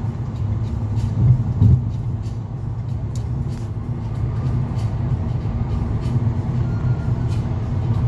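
Steady low road rumble of a car travelling at freeway speed, heard from inside the cabin: tyre and engine noise with no break.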